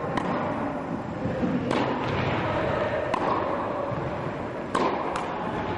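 Tennis ball struck by rackets in a rally, five sharp knocks about a second and a half apart, the last two close together as a hit and a bounce, over the hiss of an indoor hall.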